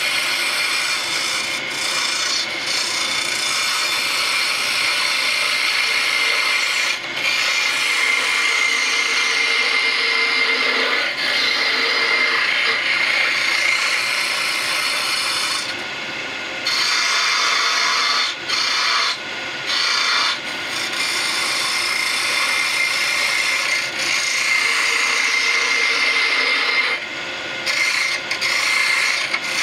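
Turning tool cutting a spinning wooden spindle on a lathe: a continuous scraping hiss as shavings peel off the wood, over a steady machine whine. In the second half it breaks off for a few brief moments as the tool leaves the wood.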